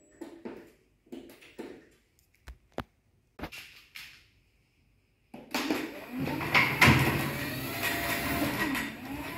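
Chain-drive garage door operator (Wiśniowski MIDO 600) raising a sectional garage door during limit programming. A few faint clicks and knocks come first; about five seconds in, the drive catches the door and a loud, steady mechanical running sound starts as the door begins to rise on its tracks.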